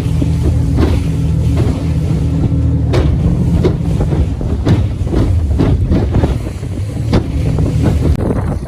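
Boat motor running steadily while under way, with wind buffeting the microphone and repeated sharp knocks every second or two.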